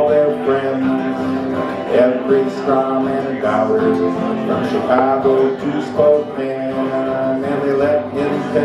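Two acoustic guitars playing a country-folk tune together, strummed chords under picked single notes.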